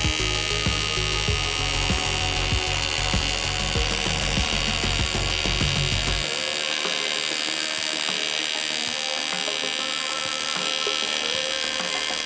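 TIG welding arc buzzing steadily while a bead is laid on a cast GM engine oil pan. A low rumble with ticks underneath stops abruptly about six seconds in.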